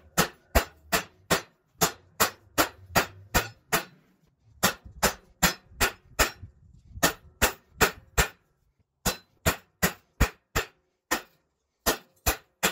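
Hand hammer striking hot 5160 coil-spring steel on an anvil, about two to three blows a second in runs with short pauses, each blow ringing sharply.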